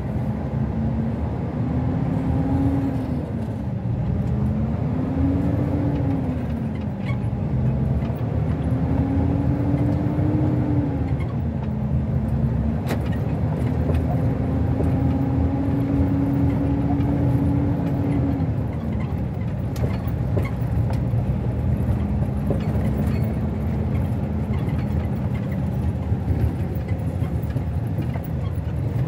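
Vehicle engine and rolling noise heard from inside the cab while driving slowly, the engine's pitch rising and falling several times as it speeds up and eases off. A single sharp click about 13 seconds in.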